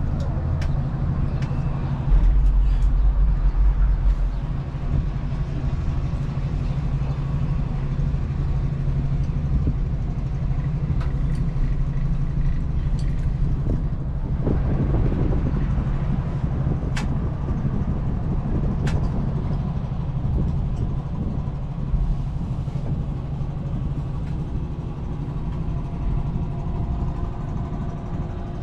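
Gondola cable car ride: a steady low mechanical hum with a deeper rumble about two seconds in, and a few light clicks.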